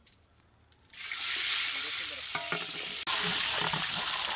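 Sliced onions dropped into hot oil in a large aluminium pot: a loud, steady sizzle starts suddenly about a second in, with a long metal ladle scraping as they are stirred.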